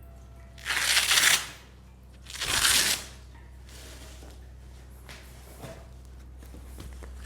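Two short, loud rustles from hands-on manual therapy handling, each about half a second long and about a second and a half apart.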